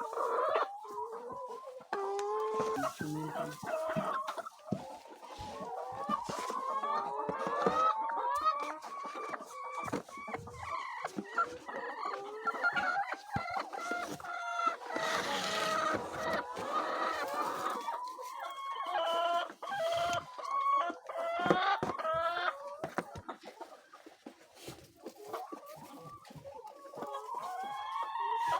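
A flock of chickens clucking and calling, many birds overlapping in a continuous chatter.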